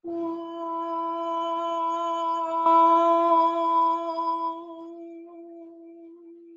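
A woman's voice holding one long steady note as a chi kung toning exercise. It swells louder about three seconds in, then fades away near the end.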